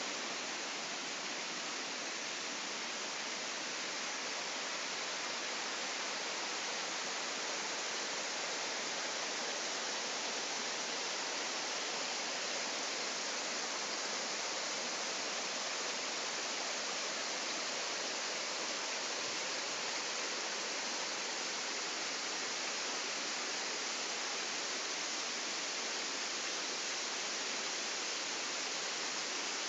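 A waterfall pouring down over rock slabs: a steady rush of whitewater, even and hissy, with no change in level.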